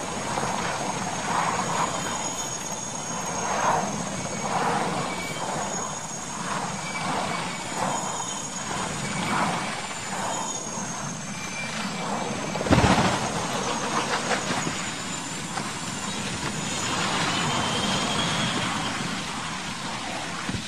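Military transport helicopter running low over the ground: turbine whine and pulsing rotor noise, broken about 13 seconds in by one loud crash as it hits the ground, with rushing noise after.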